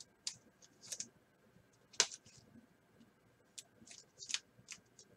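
A few faint, scattered clicks and light rustles of trading cards and packaging being handled, with a sharper click about two seconds in.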